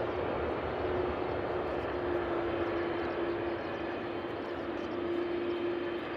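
Jet engines of a Boeing 767-300F freighter running steadily after landing: an even noise with one steady droning tone.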